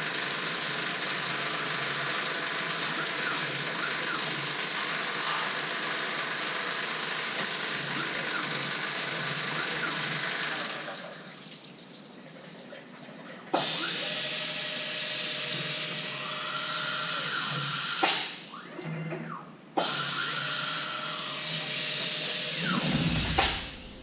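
CNC milling machine running, its spindle turning a face mill through the cut with a steady hiss and whine. The sound drops away about eleven seconds in, comes back abruptly about two seconds later, and breaks off briefly twice near the end.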